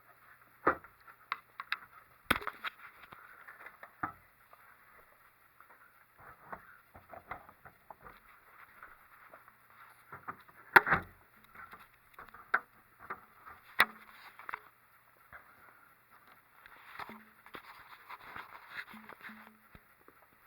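Sporadic clicks and knocks of hard plastic printer parts being handled and fitted together. The loudest knock comes about eleven seconds in.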